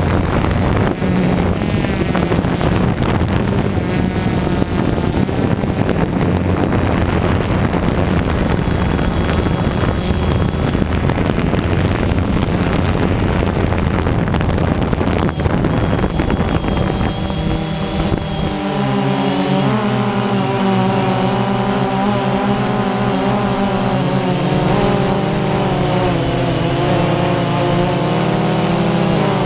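Quadcopter drone's electric motors and propellers buzzing steadily in flight, heard through the drone's own camera with wind rumbling on its microphone. About two-thirds of the way through, the wind rumble drops and the motor sound becomes a clearer whine that wavers in pitch as the drone manoeuvres.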